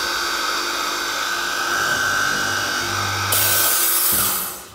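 Blum MINIPRESS PRO boring machine's motor running as its multi-spindle drilling head bores holes into a cabinet side panel, then running down about four seconds in.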